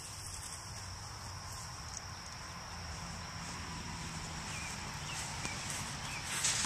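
Insects chirring steadily, a continuous high-pitched background sound.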